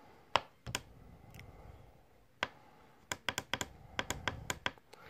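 Push buttons on an XK-W1099 digital thermostat and humidity controller clicking as they are pressed. There are a few single presses, then a quick run of about ten clicks near the end, as the humidity correction value is stepped down toward its −10 limit.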